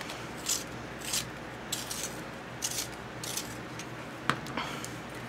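Coloured pencil being twisted in a handheld pencil sharpener: a series of short scraping rasps, roughly one every half second, with one sharp click about four seconds in.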